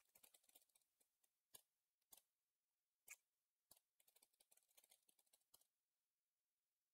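Very faint computer keyboard typing: irregular key clicks, some in quick runs, which stop a little over a second before the end.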